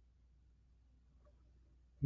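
Near silence: a pause between spoken phrases, with only a faint steady low hum.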